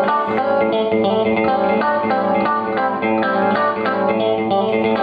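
Clean-toned electric guitar, a Fender Stratocaster played through an amp, picking a quick run of notes and chords at an even loudness.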